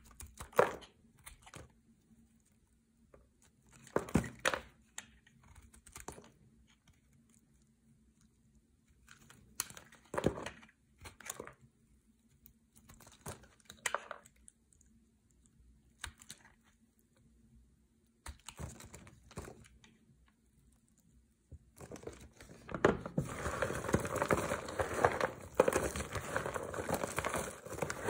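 A blade cutting into a dry bar of green soap: short, crisp cuts and scrapes every few seconds, with quiet gaps between. About 22 seconds in, a hand starts pressing and crushing a pile of soap shavings, a dense, continuous crackle that is the loudest part.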